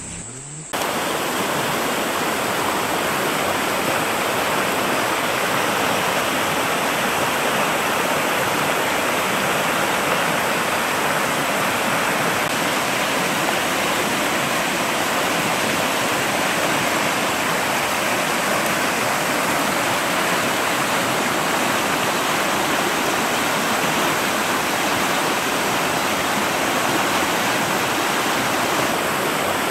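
Muddy floodwater rushing in a fast torrent: a loud, steady rush of water that cuts in abruptly under a second in.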